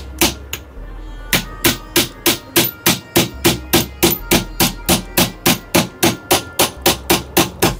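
Rapid, even taps on a small socket set over the end of a Sujata mixer motor's armature shaft, driving the shaft out of its bearing. About three or four blows a second, with a short pause about a second in.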